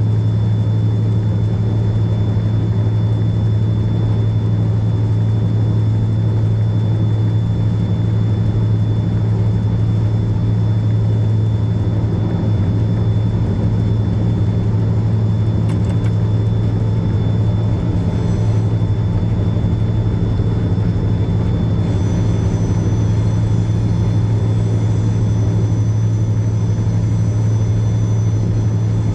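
Diesel-electric freight locomotive engine running steadily: a loud, even low drone with a faint steady high tone above it.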